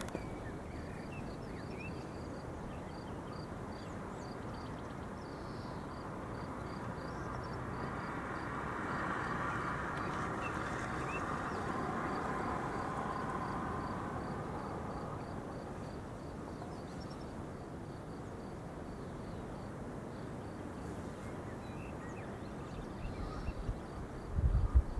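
Outdoor ambience under a distant thunderstorm: a steady background hiss, with a broad swell of noise that builds and fades over several seconds in the middle. A faint high chirp repeats about twice a second, and a few low thumps come near the end.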